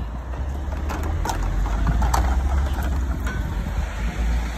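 Low, steady rumble of a car engine running nearby, swelling a little about two seconds in, with a few faint clicks over it.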